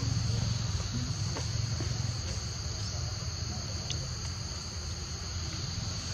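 Forest insects droning, a steady high-pitched shrill chorus, over a low rumble.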